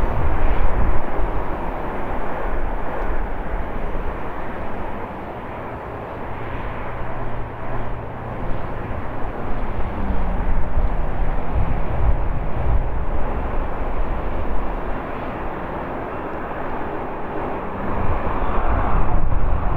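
Boeing 747-8 freighter on final approach, its four GEnx-2B67 turbofan engines giving a steady jet rumble and rushing hiss. The noise swells near the end as the jet comes over the runway to touch down.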